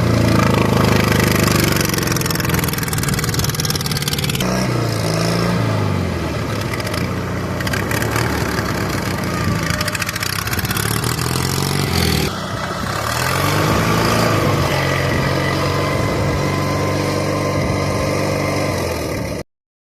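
Off-road lawn mower's engine running under load on a test drive, its speed rising and falling several times as it is throttled up and down. It cuts off abruptly near the end.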